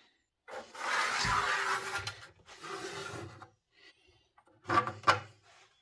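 Scraping noise, the first stretch about a second and a half long and a shorter one after it, then two sharp knocks near the end.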